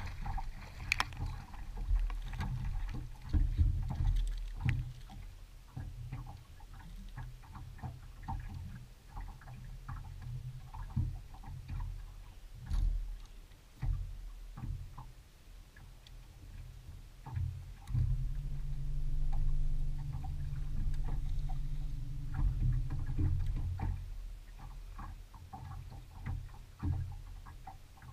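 Water lapping and slapping against a bass boat's hull under a constant low rumble, with scattered small clicks and knocks from the deck and fishing gear. A steady low hum sets in a little past the middle and stops again about six seconds later.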